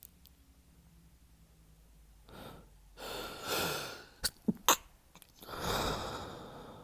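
A man's stifled sneezes during a sneezing fit: a long gasping breath in, then three sharp, held-back sneeze bursts in quick succession about four seconds in, followed by a long heavy breath.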